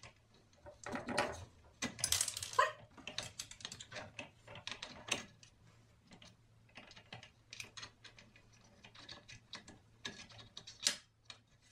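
Irregular small clicks and light metal knocks from hand-assembling the lift-assist arm on a Minn Kota Ultrex trolling motor mount. A few knocks are louder: about two seconds in, about five seconds in, and near the end.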